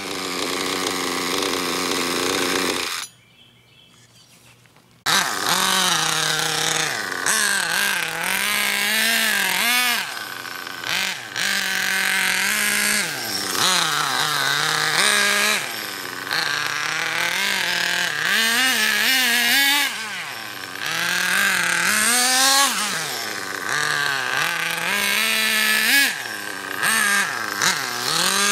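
Small nitro engine of an OFNA Ultra LX Comp RC buggy being driven, its pitch rising and falling again and again as the throttle is blipped. The sound cuts out for about two seconds near the start, then the revving resumes.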